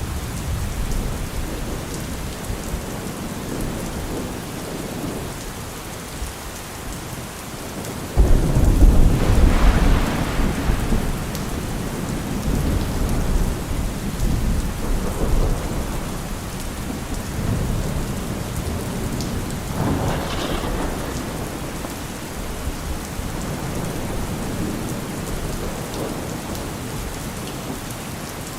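Steady rain falling, with thunder rumbling: a sudden loud peal about eight seconds in that rolls on for a few seconds, then fainter rolls of thunder later on.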